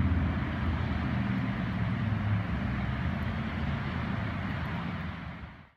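Steady rumble of road traffic, fading out sharply near the end.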